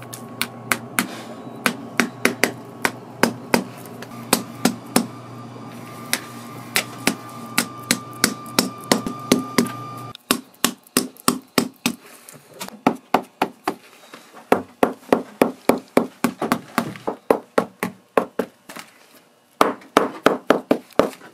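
Small shoemaker's hammer tapping on a leather boot on its last, driving in the lasting tacks: runs of quick, sharp taps, about two or three a second, with a short pause near the end. A steady low hum underneath cuts off about halfway.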